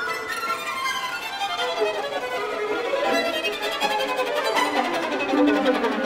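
Background music: a violin playing a flowing melody, with lower sustained notes coming in near the end.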